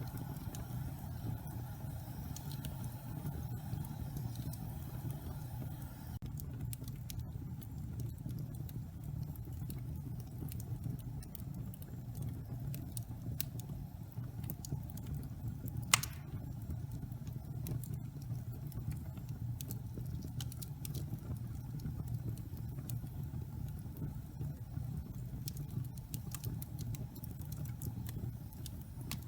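Wood fire burning in a fireplace: a steady low rumble of flames with scattered light crackles, and one sharp, loud pop about halfway through.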